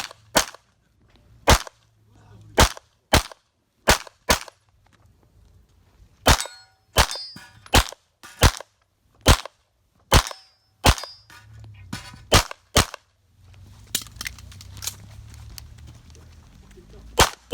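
A 9mm pistol firing a rapid course of fire: about twenty sharp shots in quick pairs and short strings, with pauses of one to two seconds between groups. Brief metallic ringing follows some of the shots.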